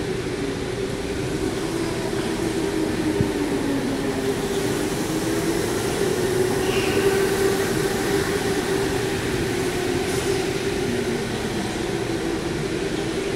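Electric go-karts running on an indoor track: a steady whine from several motors that wavers in pitch, growing a little louder as one kart passes close about six seconds in.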